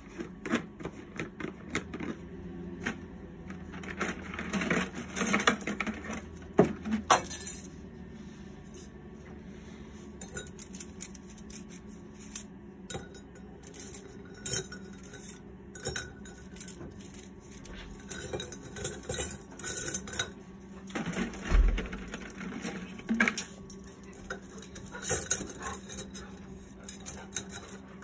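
Scraps of copper clinking and clattering against each other and the crucible as they are loaded into it by hand, in irregular bunches of knocks.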